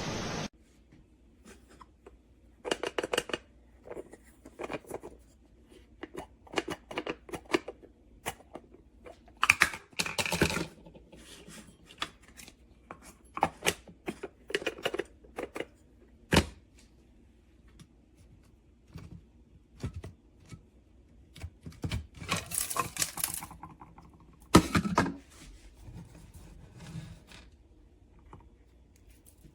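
Irregular handling sounds: scattered clicks, taps and short rustles, with a longer rustle a little past the twenty-second mark and no motor running.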